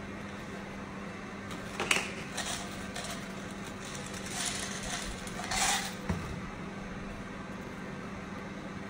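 Steady low hum and hiss of room noise, with four short scuffing handling noises between about two and six seconds in, the sharpest about two seconds in, as the cake on its board is moved.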